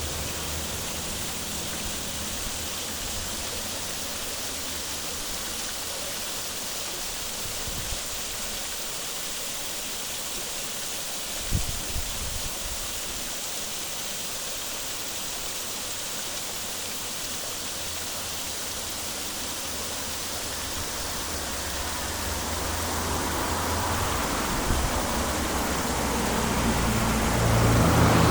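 Waterfall rushing in a steady, even roar of falling water. Low rumbling buffets come and go underneath, with a brief knock about halfway through, and the sound grows louder over the last few seconds.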